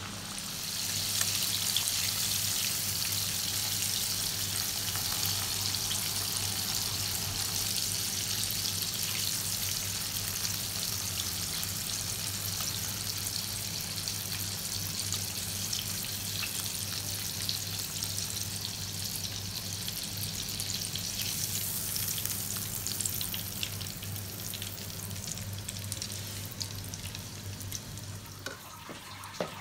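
Flour-coated chicken pieces shallow-frying in hot oil in a pan: a steady sizzle full of fine crackles. It grows louder about a second in, slowly eases, and drops away near the end. A steady low hum runs underneath.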